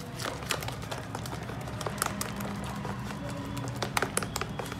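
A bare hand beating thick ground urad dal batter in a plastic bowl, mixing in salt: irregular slaps and squishes, a few louder ones about two and four seconds in.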